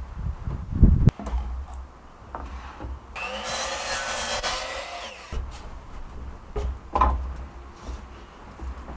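A power saw cuts through a pine board for about two seconds in the middle, with solid wooden knocks before and after.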